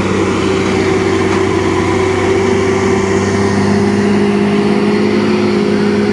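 Hino truck's diesel engine running at a steady low speed while pulling a trailer heavily loaded with steel beams, a loud even drone that holds one pitch.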